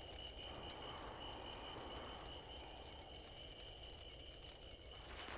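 Faint ambience: a steady high-pitched trill over a low hiss, stopping shortly before the end.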